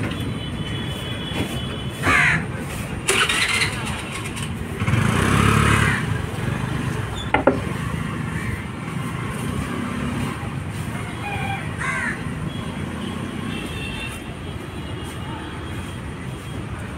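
Street traffic: a steady rumble of passing motor vehicles, with one louder vehicle pass about five to six seconds in.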